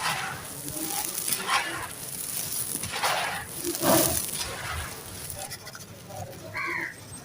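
Dry, gritty sand-cement and charcoal chunks being crushed and crumbling in irregular crunchy strokes, the loudest about three to four seconds in.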